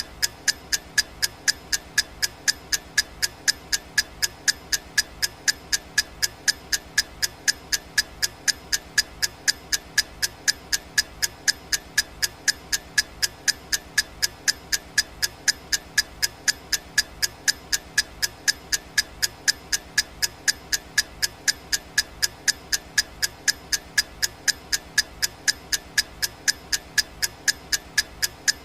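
Clock ticking sound effect: sharp, evenly spaced ticks at a steady pace, all of the same loudness.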